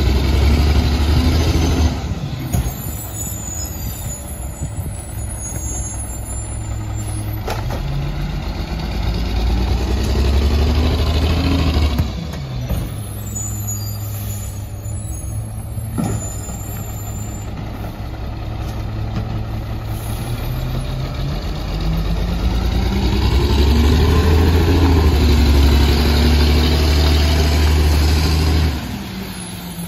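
Mack MR garbage truck's diesel engine pulling away, its note climbing under load and then dropping suddenly, twice, as the truck moves up the street between stops.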